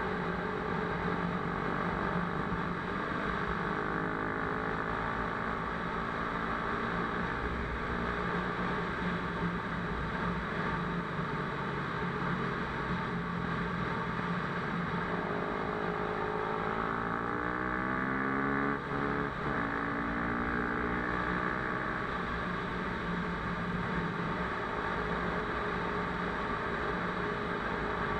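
Motocross bike engine running steadily, its pitch rising and falling with the throttle for several seconds a little past the middle.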